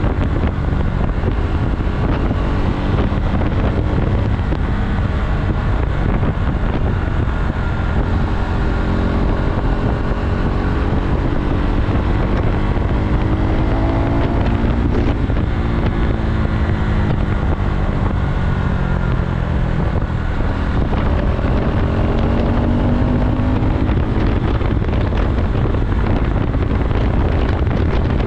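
KTM Duke motorcycle engine pulling under way, its note rising and falling with throttle and gear changes, with wind buffeting the microphone.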